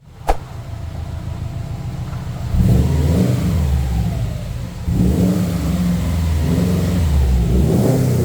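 Subaru STI engine running with a low rumble and revved up twice, a couple of seconds in and again about five seconds in, after a sharp click at the very start.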